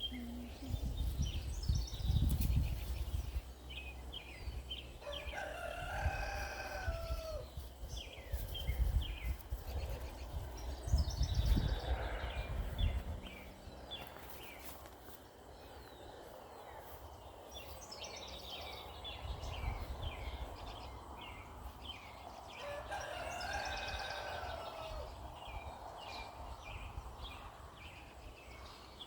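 A rooster crowing twice, one long call about five seconds in and another near the end, over songbirds chirping repeatedly. Low rumbling noise in the first half.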